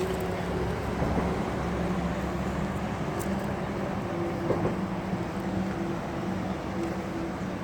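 A steady motor hum, like a vehicle engine running, under a continuous rushing noise.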